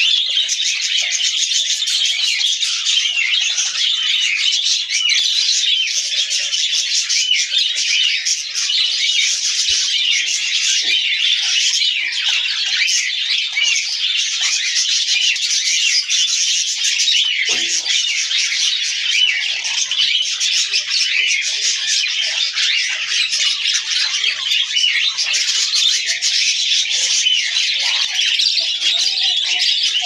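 Budgerigars chattering and warbling without a break: a dense stream of rapid, high-pitched chirps at an even level.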